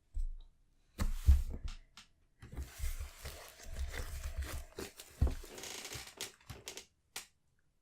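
Hands swirling and stretching clear homemade slime, making irregular sticky crackles, squelches and small pops. It starts about a second in and stops a little after seven seconds.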